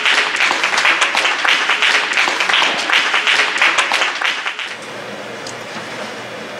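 Dense crowd applause for about the first four and a half seconds, then it drops off to a quieter, steady background hum.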